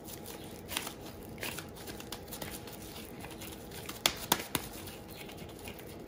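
Disposable-gloved hands scooping and rolling minced beef kebab mixture into a ball: a soft, sticky crinkling and squishing, with a few sharp clicks about four seconds in.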